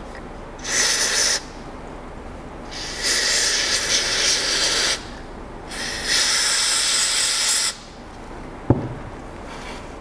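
Aerosol lubricant spray hissing into an NSK FX22 contra-angle dental handpiece in three bursts, one short and two of about two seconds, flushing residue out through the head into a tissue. A single sharp tap follows near the end.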